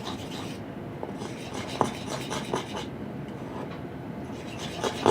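A small fork stirring and scraping clear glue and contact solution in a bowl, with soft rubbing and light clicks.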